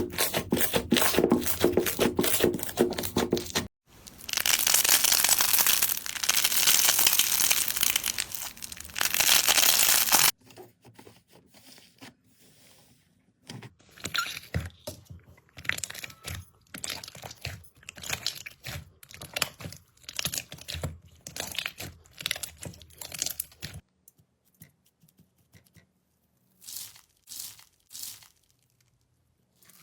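Slime being squeezed and pressed by hand: a dense, rapid crackle for about ten seconds, then separate small pops and clicks that thin out toward the end.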